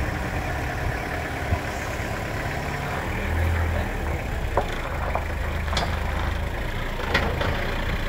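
Pickup truck engine running at low revs as the ute creeps forward, a steady low rumble that grows slightly from about three seconds in, with a few light clicks in the second half.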